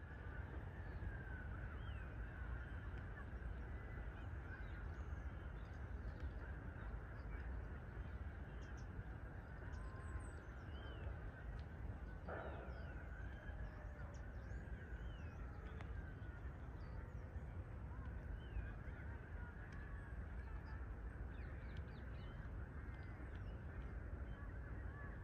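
Boeing 787-9 Dreamliner climbing out after take-off, heard from a distance: a steady low rumble with a faint, wavering whine over it. Small birds chirp now and then.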